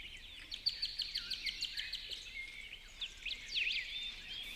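Small birds chirping and twittering, with a quick run of short repeated notes about a second in and a few swooping notes past the middle.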